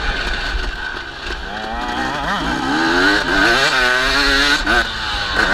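Dirt bike engine revving up and down as the rider works the throttle, its pitch rising and falling several times, over a low wind rumble on the microphone.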